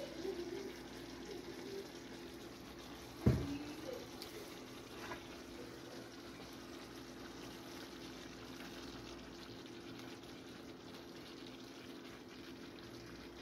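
Butter simmering quietly around fish fillets in a frying pan, a faint steady bubbling with a low hum underneath. A single sharp knock sounds about three seconds in, with a couple of light clicks soon after.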